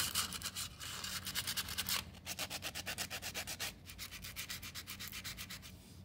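Copper parts being rubbed by hand on sandpaper in quick, even back-and-forth strokes, roughening the surfaces so the solder will bond. The scraping grows softer in the last couple of seconds.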